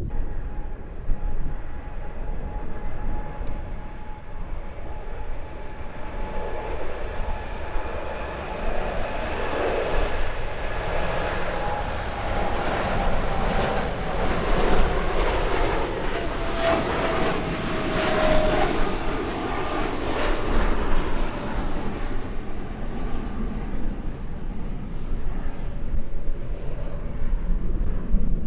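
A fixed-wing aircraft passing by with its engines running. The noise builds to a peak past the middle and then fades, and an engine whine slides down in pitch as the plane goes by. Wind rumbles on the microphone underneath.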